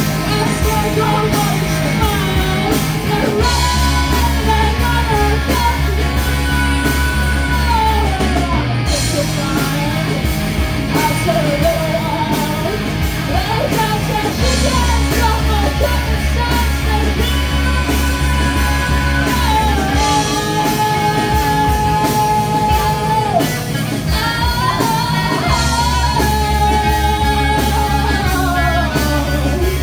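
Live rock band playing: a singer's voice over electric guitars, bass guitar and drums, with heavy low bass passages dropping in and out and a long held sung note about two-thirds of the way through.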